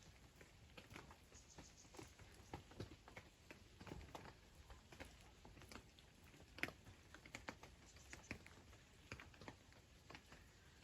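Light rain: faint, irregular ticks of single drops landing, one louder than the rest a little past halfway.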